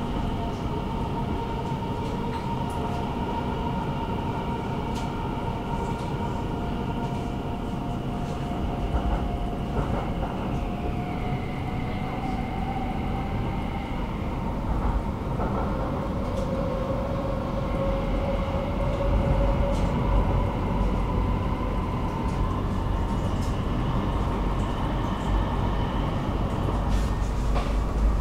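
Stockholm metro train running at speed, heard from inside the car: a steady rumble of wheels on track with high whining tones that drift slowly in pitch. The deep rumble grows louder in the second half.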